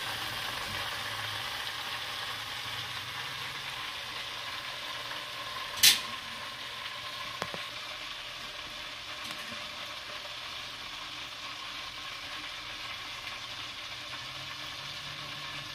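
Chicken legs sizzling in hot canola oil in an electric deep fryer, a steady frying hiss, the pieces fully cooked and being lifted out. A single sharp click about six seconds in.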